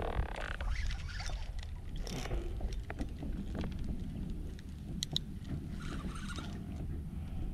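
Low wind and water rumble around a fishing kayak, with scattered small clicks and scrapes of a reel and rod being worked while a hooked fish is played.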